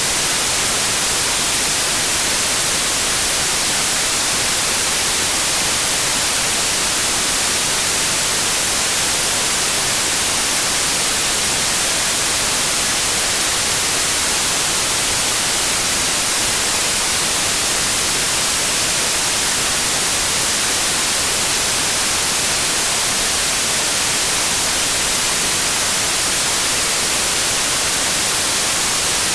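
Steady white noise: an even, unchanging hiss, strongest in the treble, with no variation.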